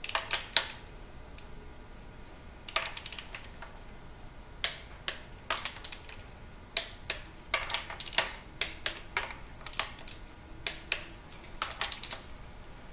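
Click-type Matco torque wrench ratcheting on the connecting-rod nuts of a Ford 289 V8 short block, which are being torqued to 24 foot-pounds. Sharp metallic clicks come in short irregular groups.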